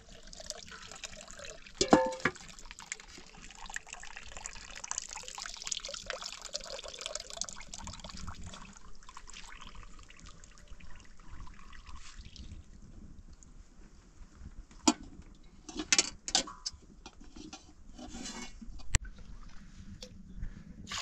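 Milk trickling and splashing through a hand-held funnel into a plastic basin, steady for about twelve seconds and then fading. A sharp knock about two seconds in, and several knocks and clinks later on as a metal bowl is handled and dipped into the milk.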